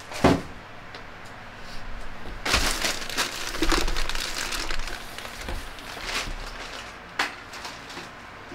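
Handling noises: a sharp click just after the start, then rustling and crinkling for a couple of seconds, and a few more single clicks and knocks.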